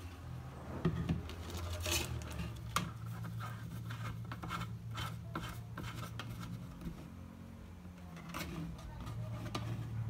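A hard-plastic watering can being handled and set down on a wooden tabletop: rubbing, scraping and light clicks and knocks of plastic on wood, over a low steady hum.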